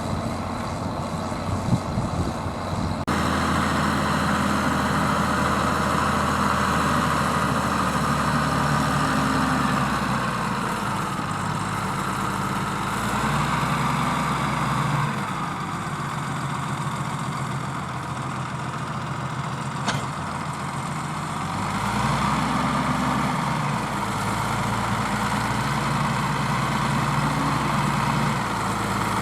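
Zetor Crystal 12145 tractor's diesel engine pulling a five-furrow plough through wet ground, its pitch dropping and rising several times as the load changes. The first few seconds are a rougher, noisier stretch with a few knocks before the steady engine sound cuts in.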